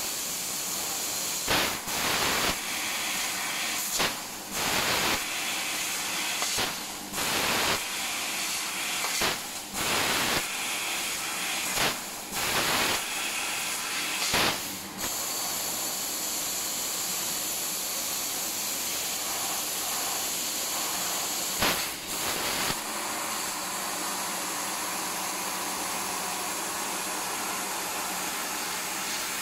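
Fiber laser cutting machine cutting sheet steel: a steady hiss of gas from the cutting head, with a run of short, louder blasts through the first half and a pair more about three quarters of the way in.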